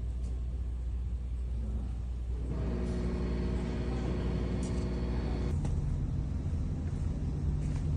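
GMC Sierra engine running steadily. A second steady, higher-pitched tone joins from about two and a half seconds in and stops about three seconds later, when the low engine note shifts.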